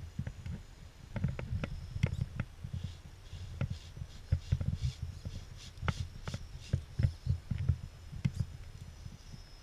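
Axial AX10 RC rock crawler clambering over rock: irregular low bumps and sharp clicks as its tyres and chassis knock and scrape against the stone.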